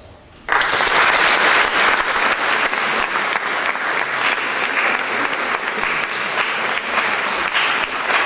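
Audience applauding: a dense round of clapping that starts abruptly about half a second in and stays steady.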